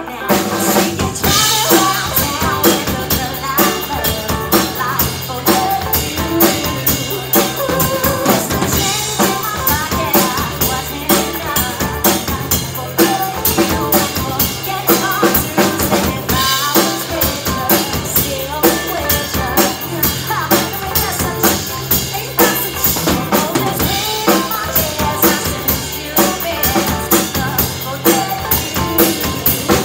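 Live band playing with a steady beat on a drum kit (bass drum, snare and rimshots), electric guitar and electric bass guitar.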